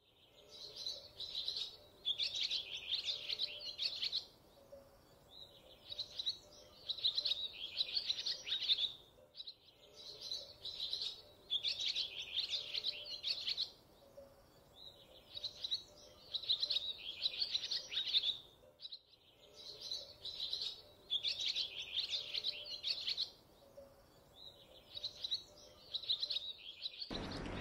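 Songbirds twittering: quick chirps in phrases of a second or two with short pauses between them, the same stretch seeming to repeat about every nine and a half seconds, as a looped birdsong recording would.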